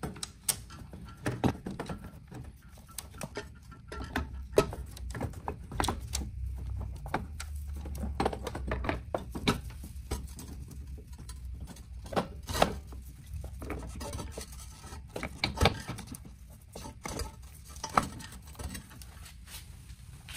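Irregular clicks, knocks and clatter of a Talaria Sting's gearbox case being worked into place and fitted onto the bike's electric motor, with several sharper knocks scattered through.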